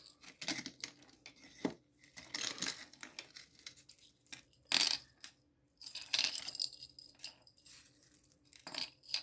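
Metal costume-jewelry chains and pendants clinking and rattling against each other and the wooden tabletop as they are handled and untangled, in irregular clusters of small clinks, with a louder clink about halfway through.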